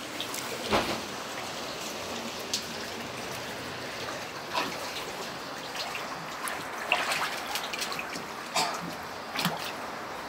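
Shallow floodwater on a bedroom floor splashing and trickling in short, irregular splashes as it is stepped in or stirred, over a steady hiss of water.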